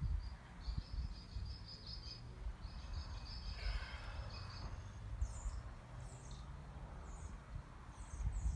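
Outdoor ambience: a high buzzing trill from an insect or bird in a few long stretches, giving way about halfway through to short, sharp bird chirps, over a low rumble.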